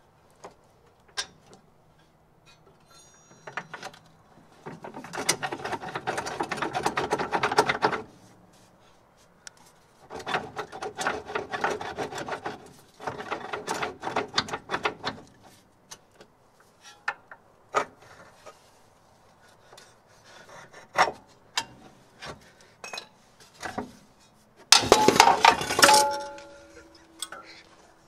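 Hand tools at work on a Mercedes W201 front lower control arm: runs of rapid metallic clicking lasting a few seconds, with scattered knocks. About three seconds from the end comes a loud metal clatter that leaves a short ringing tone.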